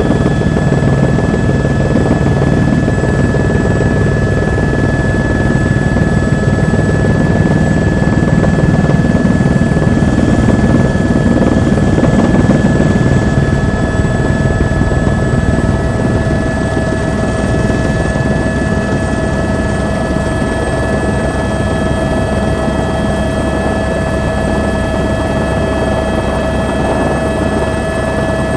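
Helicopter in flight heard from inside the cabin: steady rotor and engine noise with a constant high whine, a mid-pitched tone becoming more prominent about halfway through as the level eases slightly.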